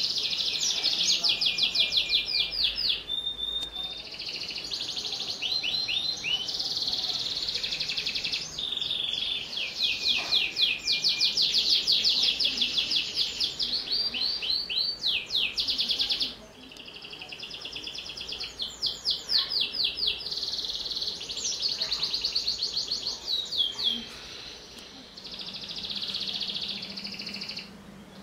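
Domestic canary singing a long, continuous song. It moves through fast trills and rolls of quickly repeated high notes, changing phrase every second or two, and turns softer for a few seconds past the middle.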